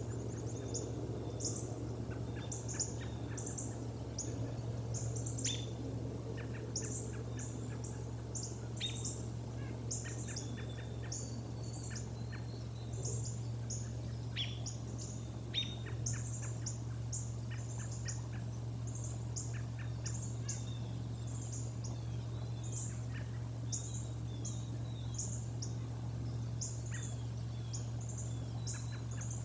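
Small birds chirping, with short, high notes in quick little groups throughout, over a steady low hum.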